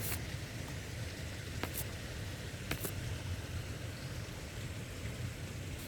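Steady heavy rain falling: an even hiss with a few sharp drip clicks close by, over a low rumble.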